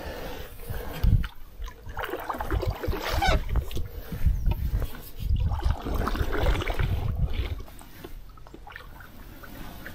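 Wooden canoe paddle dipping and pulling through loch water from a folding canoe, with splashing and dripping in two long strokes, and a knock about a second in. Quieter near the end.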